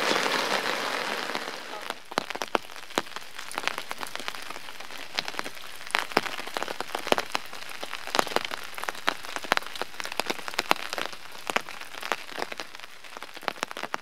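Heavy rain falling, with many sharp drop impacts close by over a steady hiss.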